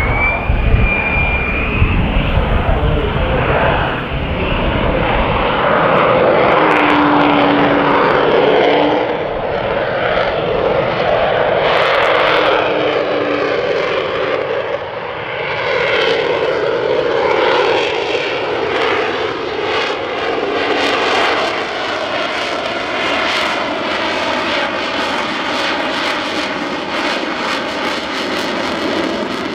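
Single-engine F-35A Lightning II jet fighter's Pratt & Whitney F135 turbofan, loud, with a deep rumble in the first few seconds, then a steady jet noise whose tones slowly shift as the aircraft moves across the sky, easing gradually toward the end.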